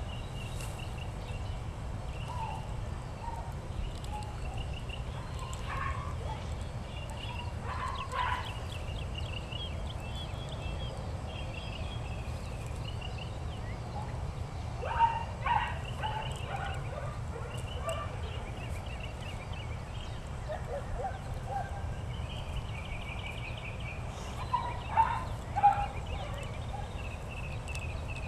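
Birds calling: repeated short chirps run throughout, with louder, lower calls about halfway through and again near the end.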